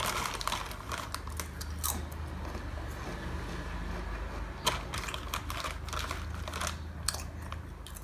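A foil chips packet crinkling and rustling as a hand digs chips out of it: a run of sharp crackles and clicks, the sharpest about halfway through, over a low steady hum.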